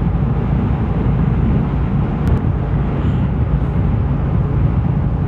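Motorcycle riding at speed: the engine runs steadily under wind rush on the microphone.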